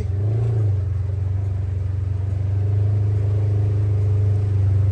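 Side-by-side UTV engine running steadily while driving along a muddy, waterlogged trail, a deep hum that gets a little louder partway through.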